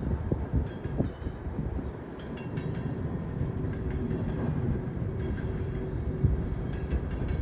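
Empty coal train cars rolling past with a steady rumble of wheels on rail, scattered clanks, and short high-pitched squeals every second or so.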